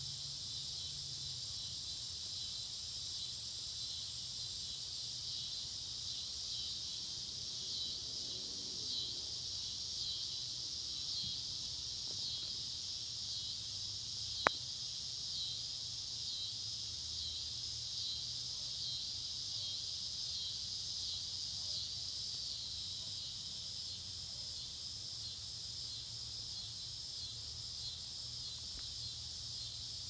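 Evening chorus of crickets: a steady high-pitched trilling with a faint pulsing rhythm, over a low hum. A single sharp click about halfway through.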